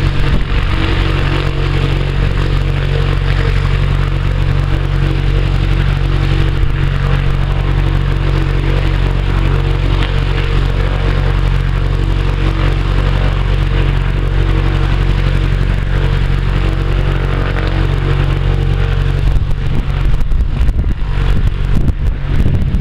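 Cessna F150's Continental O-200 four-cylinder piston engine and propeller running steadily on the ground. Wind buffets the microphone near the end.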